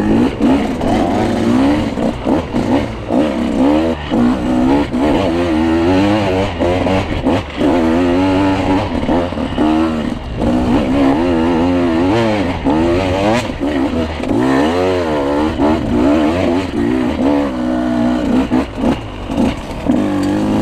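Dirt bike engine revving up and down with the throttle under load as it climbs a steep, rutted trail, with scattered knocks and clatter as the bike hits bumps.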